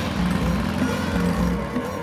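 Background music with a repeating bass line that slides up between notes.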